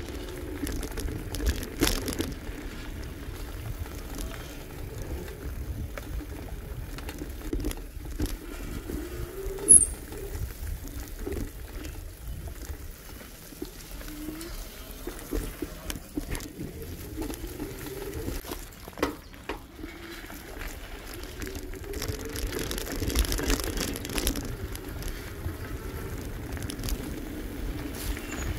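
Bicycle riding along a trail: tyres rolling with scattered clicks and rattles, and a low rumble of wind on the microphone.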